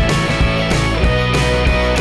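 Rock background music with electric guitar and a steady drum beat.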